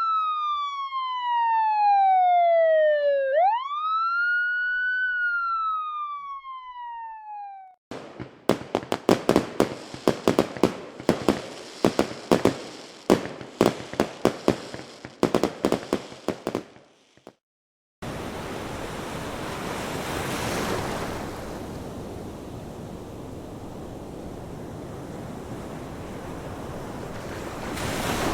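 A wailing siren slowly falls and rises in pitch for about six seconds. After a pause comes a rapid, irregular series of sharp bangs lasting about nine seconds. Last is steady ocean surf whose waves swell twice.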